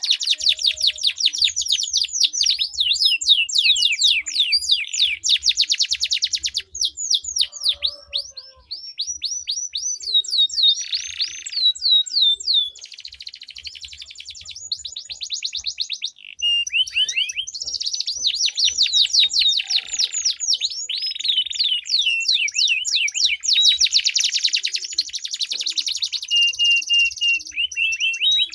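Domestic canaries singing in long, rapid rolling trills, each made of quickly repeated notes. The song runs almost without a break and softens for a few seconds around the middle.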